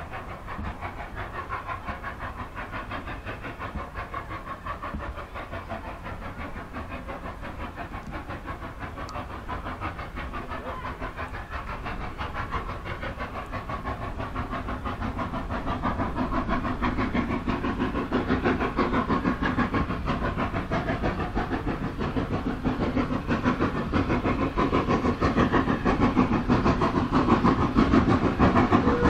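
Austerity 0-6-0 saddle-tank steam locomotive puffing steadily with rapid exhaust beats, growing louder from about halfway through as it approaches.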